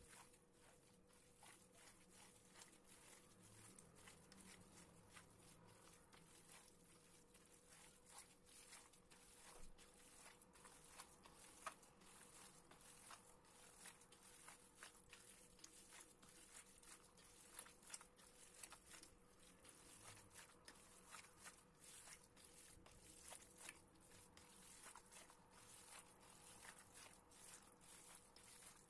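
Faint, irregular wet squelching and crackling of a bare hand kneading a raw filling of minced lamb, chopped onion and tomato in a stainless steel bowl, over a faint steady hum.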